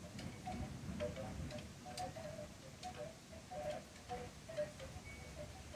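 Faint, irregular short tinkling notes and scattered light ticks over a low rumble of storm wind that fades.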